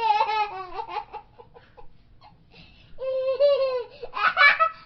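Young children laughing and squealing in high-pitched bursts, with a lull of about two seconds in the middle and a long held squeal after it.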